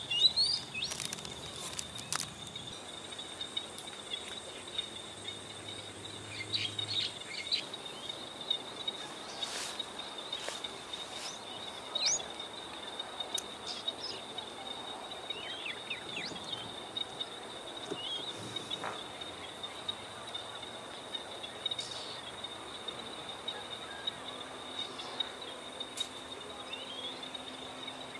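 Outdoor ambience: a steady high-pitched insect drone with scattered short chirping bird calls.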